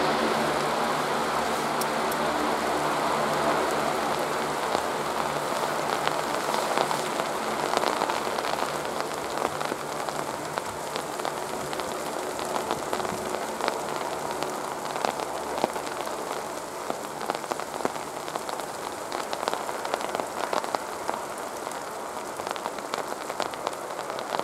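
Icy rain falling, with many sharp drop ticks, over the steady noise of an LCAC hovercraft's gas turbines and propellers, which gradually fades as the craft moves away.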